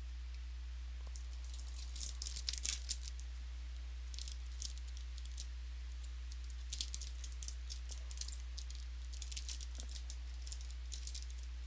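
Football trading cards being flipped through by hand, the card stock giving light clicks and slides in several short clusters. A steady low electrical hum runs underneath.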